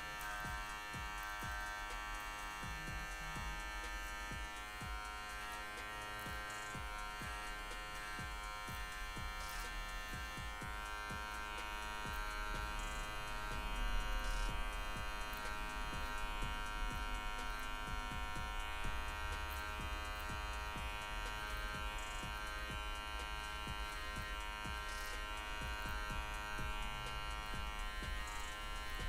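Cordless finishing hair trimmer buzzing steadily while it runs, its blade tip carving and cleaning freestyle design lines into short faded hair.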